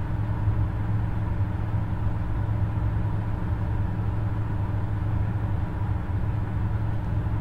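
Steady low hum with a faint higher tone above it, unchanging throughout.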